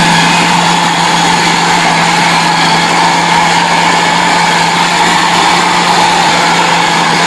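Electric food chopper running steadily at full speed, its blade mincing raw meat into keema; a loud, even motor hum and whine.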